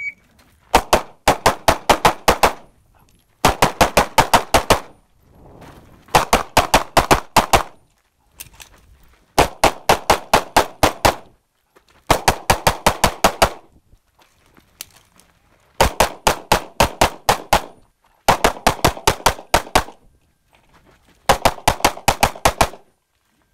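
Shot-timer start beep, then rapid pistol fire from an Open-division 2011 in 9mm major: about eight fast strings of five to eight shots each, broken by short pauses, with one lone shot in the middle.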